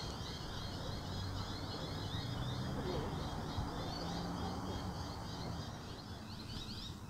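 Birds chirping in a fast, steady run of short repeated high calls, over a low background rumble.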